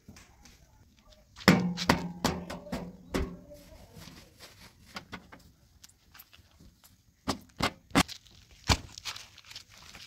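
A cloth rubbing over a tractor's sheet-metal bonnet, with scattered sharp knocks and thumps against the panels. There is a cluster about a second and a half in and a run of four separate knocks near the end.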